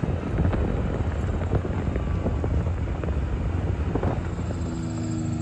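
John Deere Gator utility vehicle driving along a rough farm road: the engine runs under heavy wind buffeting on the microphone, with scattered rattles and knocks from the ride. Near the end a steady humming tone comes in.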